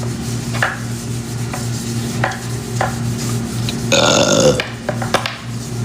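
A few light clicks of a spoon stirring in a cup, then a short burp about four seconds in, over a steady low hum.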